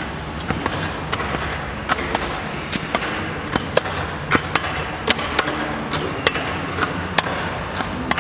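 Long-track speed skates striking the ice: a run of sharp, irregular clacks, about one or two a second and coming faster after a few seconds, over the steady noise of a large ice hall.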